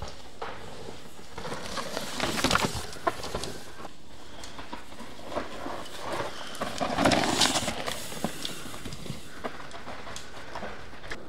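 Mountain bike tyres skidding and scrabbling over a loose, dry dirt trail as the rider passes, with knocks and rattles from the bike. It is loudest about two seconds in and again around seven seconds.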